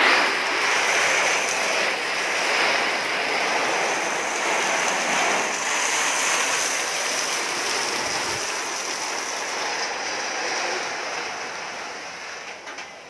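Fire hose spraying water on a burning house, a steady rush of water spray that fades near the end.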